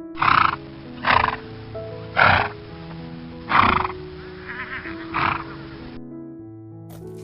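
Horse neighing in five short loud calls about a second apart, with a quieter, quavering whinny before the last one; the calls stop about six seconds in. Background music plays underneath.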